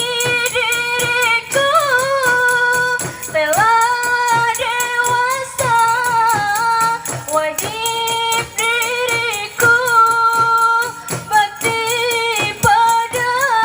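Qasidah singing: voices carry a melismatic melody line over steady, rapid tambourine and hand-drum beats.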